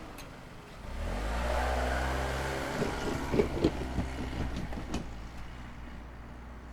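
A motor vehicle drives across a railway level crossing, its engine rising in pitch as it accelerates. Several sharp knocks come as it goes over the rails, and then it fades away.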